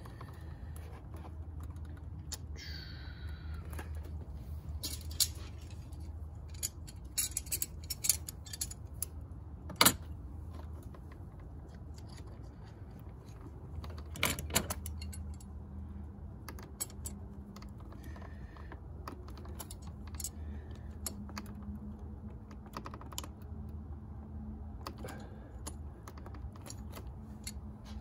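Irregular small metallic clicks and taps as pliers grip and bend a car battery cable's terminal clamp, the sharpest about ten and fourteen seconds in. A steady low hum runs underneath.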